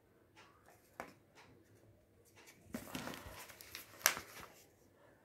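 Folded coloured-paper boats rustling and crinkling as they are handled and set down, with a few light taps and one sharper click about four seconds in.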